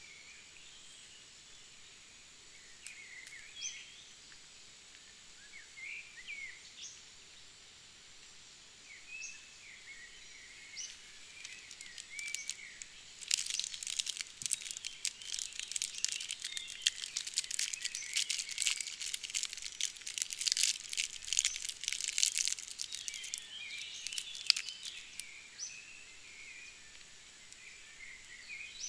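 Small birds chirping on and off in woodland. About halfway through, a dense run of plastic crinkling and crackling lasting about ten seconds as a small MRE ration packet is handled and opened; this is the loudest sound.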